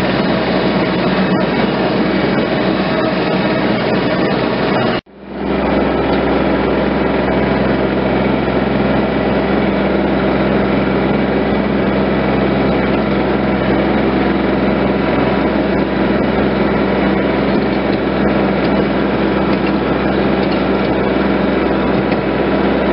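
Tractor engine running steadily at a constant speed. The sound cuts out abruptly for a moment about five seconds in, then carries on unchanged.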